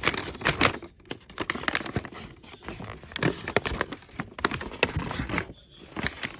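Packaging crinkling and rustling as it is handled and torn open, a dense run of irregular crackles.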